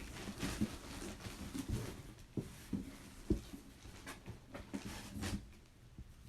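Irregular rustling and soft knocks of sweatpants and packaging being handled and unfolded.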